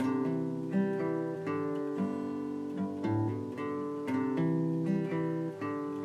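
Background music: an acoustic guitar plucking and strumming a steady run of chords.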